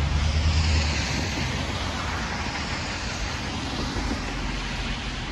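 Road traffic crossing on wet pavement: tyres hissing on the wet road and engines running. A low engine drone is strongest in the first second as a vehicle passes close, then eases off.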